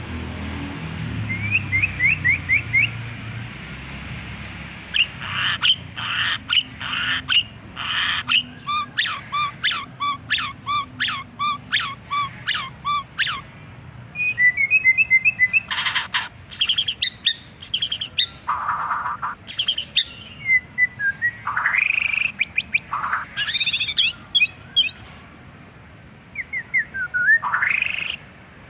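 White-rumped shama (murai batu) singing a long, varied song: whistled glides, a fast run of evenly repeated notes, trills and a few rasping notes, in phrases with short pauses between them.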